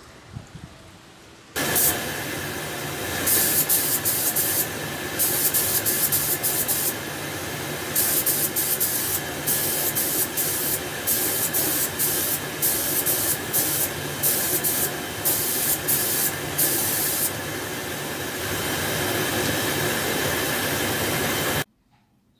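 Compressed-air hiss of a gravity-feed spray gun coating a steel wheel. It comes in short on-off spurts as the trigger is worked pass by pass, over a steady hum, and cuts off suddenly near the end.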